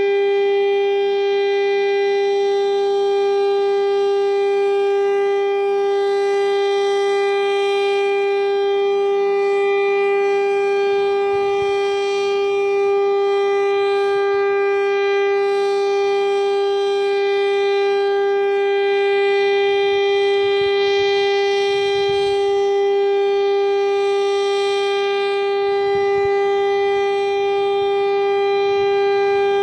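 STL-10 outdoor warning siren sounding a steady single tone during a tornado siren test, its loudness swelling and dipping slightly.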